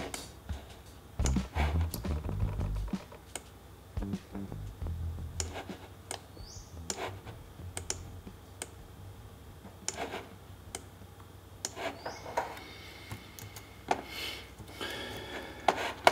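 Scattered clicks from a computer mouse and keyboard, irregular and spaced out, as an image is edited on screen.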